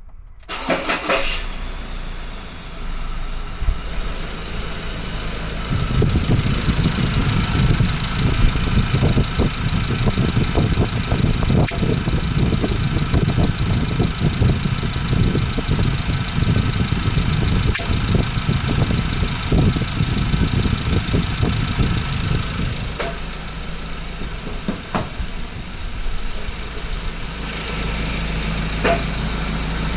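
Ford Ranger 2.2L four-cylinder turbodiesel engine running with a rattling noise whose cause is unknown. It gets louder at about six seconds in and drops back near twenty-three seconds.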